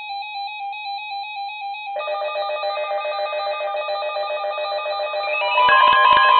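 Electronic alert tones from a weather radio sounding for a flash flood warning: several tones pulse rapidly. More tones join about two seconds in and again near the end, and the alarm grows louder.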